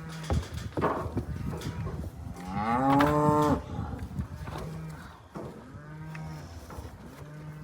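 Cattle mooing: one loud, long bawl that rises and then falls in pitch about two to three seconds in, with several fainter, lower moos around it. A few sharp knocks are heard too.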